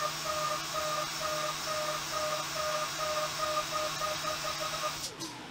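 Haas CNC mill roughing the bevel of a hardened 20CV steel knife blade with air blast on the cutter: a steady hiss with a faint tone pulsing about three times a second. It cuts off about five seconds in as the roughing pass ends.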